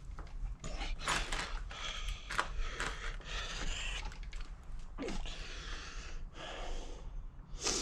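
Crank puller being turned on a Brompton's crank arm with a wrench: a series of irregular metallic scrapes and creaks, with a short falling squeak about five seconds in.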